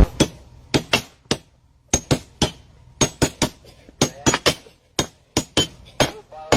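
A quick, irregular series of sharp taps or knocks, about four a second, some with a brief clinking ring.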